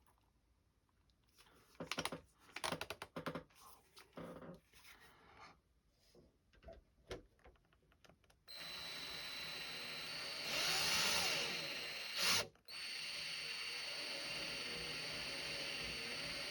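Small electric drill boring out a prop-shaft hole in a plastic model-ship hull with a 3 mm bit. Several seconds of handling clicks come first, then the drill starts about halfway through and runs steadily with a high whine. Its pitch dips and rises as the bit bites, and it stops briefly and starts again.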